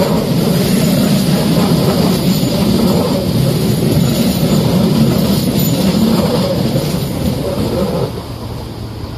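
Madrid Metro Line 5 electric train running with a loud, steady rumble of wheels and motors. The rumble drops off sharply about eight seconds in.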